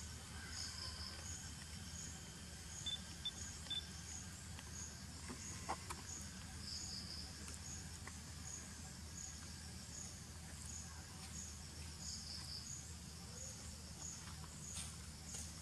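Insects chirping: a high chirp repeating at an even pace, with short trills from another insect every few seconds, over a low steady rumble.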